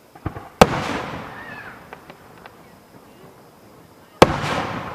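Two aerial firework shells bursting, one about half a second in and one near the end, each a sharp loud bang followed by a long echoing rumble, with a few small pops and crackles between them.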